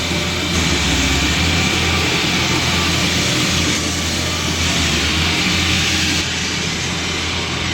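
Walk-behind concrete slab saw running and cutting into concrete: a steady engine drone under a loud, dense grinding noise.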